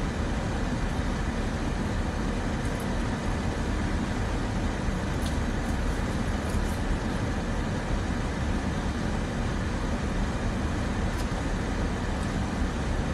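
Steady rumble and hiss inside a parked car's cabin, from the idling engine and the climate-control fan.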